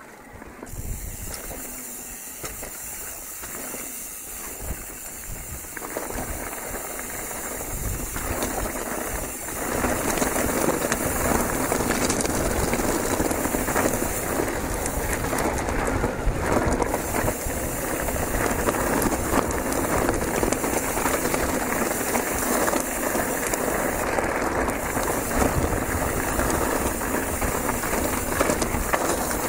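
Riding noise from an e-mountain bike descending a rough gravel and stone track: tyres rumbling over stones, the bike rattling, and wind rushing on the microphone. It gets louder about six seconds in and again about ten seconds in.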